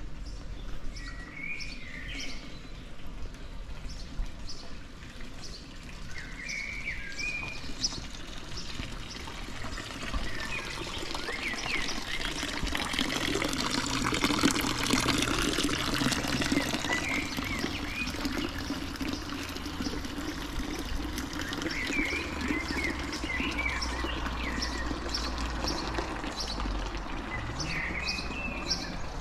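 Water from a stone fountain spout pouring and splashing into its trough, rising to its loudest about halfway through and then easing. Small birds chirp now and then.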